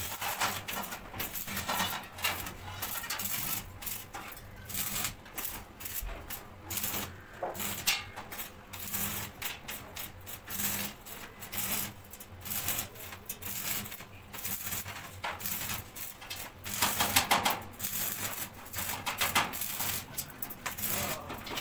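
Electric arc welding on a steel grill frame: the arc crackles and sputters in uneven bursts, stopping and restarting as the joints are welded one by one.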